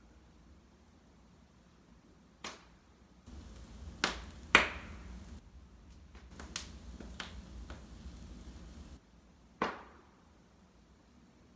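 Wood fire in a fireplace crackling, with sharp pops scattered through it; the loudest pops come about four and a half seconds in and again near ten seconds, over a low, soft background rumble of the flames.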